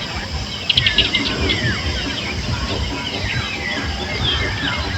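Many birds chirping and calling at once, short whistled notes overlapping throughout, with a quick run of sharp chips about a second in. A low rumbling noise runs underneath.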